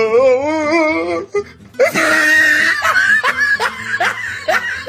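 A wavering, wobbling drawn-out tone for about the first second, then from about two seconds in a loud burst of laughter, a run of short repeated ha-ha strokes.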